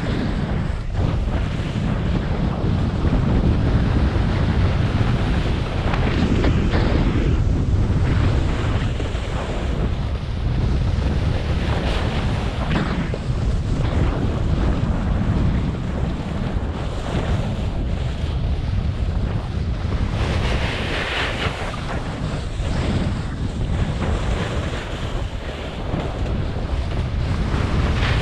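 Wind buffeting the camera microphone during a fast snowboard run, a continuous low rumble mixed with the hiss of the board sliding on snow. The hiss swells briefly now and then, most strongly about twenty seconds in.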